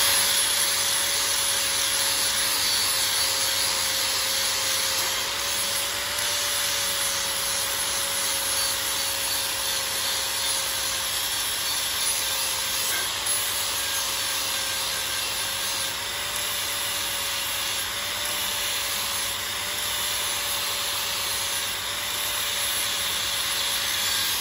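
Angle grinder running steadily, its disc grinding a bevel onto the end of quarter-inch-thick 4x4 steel square tubing: a steady motor whine under the hiss of metal being ground, with the pitch dipping slightly now and then.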